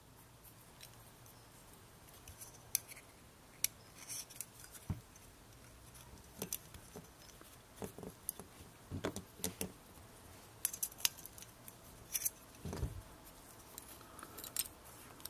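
Small titanium key-fob prybar being worked onto a split key ring with keys: scattered sharp metallic clicks and clinks, with keys jangling now and then.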